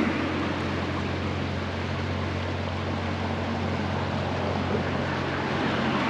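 Steady rush of a shallow river flowing over a rocky riffle, with a low steady hum underneath.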